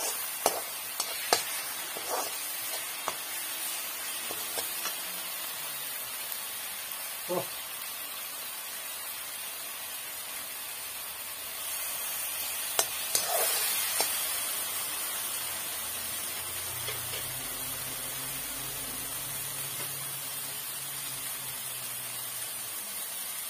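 Spiced masala sizzling steadily in oil in an aluminium kadai, with a steel spatula clicking and scraping against the pan in the first second or so and a few more clicks about 13 seconds in.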